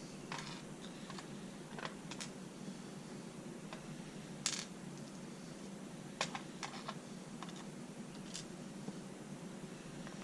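Scattered light clicks and taps of small metal lock pins and parts being handled and set down on a hard surface, about nine in all, the sharpest about halfway through.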